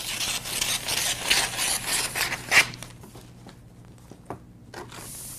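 Scissors cutting across a sheet of wrapping paper, with the paper crackling and rustling, ending in a sharp snap about two and a half seconds in; after that only a few soft clicks of paper handling.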